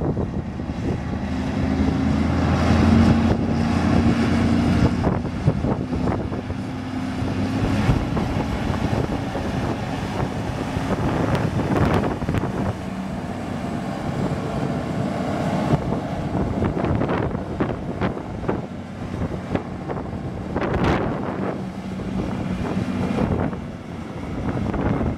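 Diesel engine of a New Holland TJ375 four-wheel-drive tractor running as the tractor drives and turns, a steady low engine note that is loudest a few seconds in.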